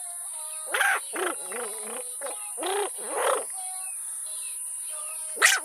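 A small boy imitating an animal call with his voice: short pitched vocal sounds that bend up and down, in two groups, about a second in and again about three seconds in.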